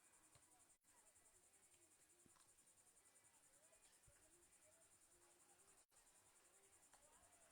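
Near silence, with a faint, high, pulsing chirr of insects.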